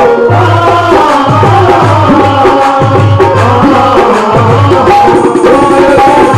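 Live Haryanvi folk devotional music: a harmonium holding a melody over a steady hand-drum beat, with deep drum strokes that slide down in pitch every second or so.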